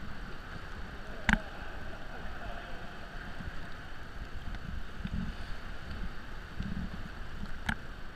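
Sea kayaks paddling through a sea cave: steady water lapping and paddle splashes with some low thumps, and two sharp knocks, one about a second in and one near the end.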